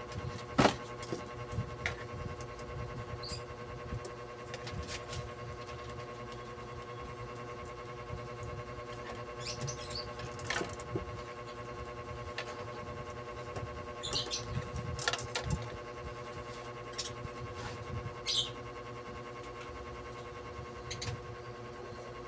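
Scattered light clicks, taps and scratchy rustles of copper winding wire being threaded and pulled through the slots of an alternator stator by hand, the sharpest click about half a second in. A steady hum runs underneath.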